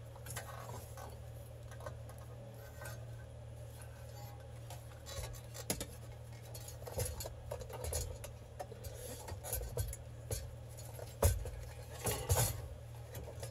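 Clicks, clinks and knocks of a black under-dash bracket and its wiring harness being handled and worked loose, busier in the second half, with the sharpest knocks near the end, over a steady low hum.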